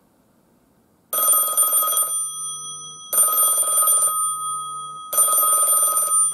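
Western Electric 2500 desk telephone's mechanical bell ringing in three bursts of about a second each, a second apart, for an incoming cell-phone call relayed through an X-Link Bluetooth gateway. The bell tone hangs on between the bursts.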